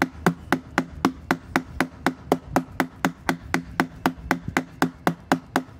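Hammer repeatedly striking a rivet end, peening it over a washer so the washer holds: a steady run of light strikes about four a second, each with a brief ring.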